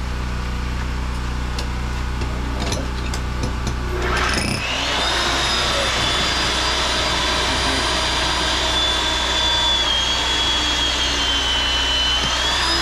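Steady low hum of a running generator with a few light clicks; about four seconds in a high-pitched electric motor spins up to a steady whine and keeps running over it.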